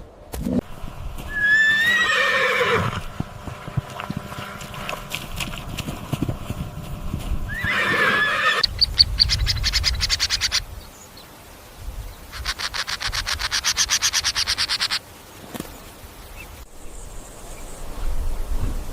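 Repeated whinnying calls of a horse-family animal: two high calls that slide in pitch, each running into a long, rapid quavering pulse train.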